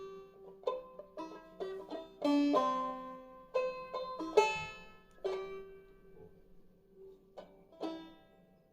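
Five-string banjo in eCGCD tuning played clawhammer style: a phrase of single plucked notes high up the neck, each ringing and dying away. The notes come more sparsely and softly toward the end, with a last couple of notes fading out.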